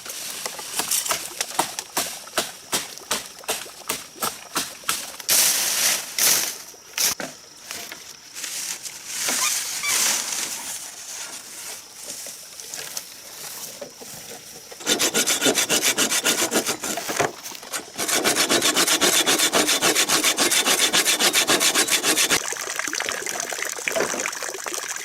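Bamboo poles being cut by hand: a run of sharp blade strikes on the bamboo over the first several seconds, then fast, steady back-and-forth sawing through a pole from about the middle on.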